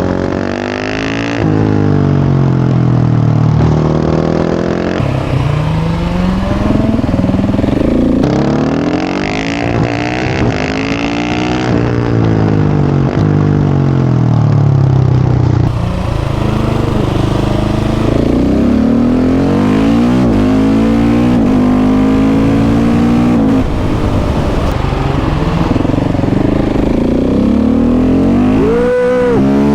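KTM 690 SMC R single-cylinder engine through a full Leo Vince exhaust, ridden hard: the revs climb and drop again and again as it pulls through the gears and backs off. A sharp rev blip comes near the end.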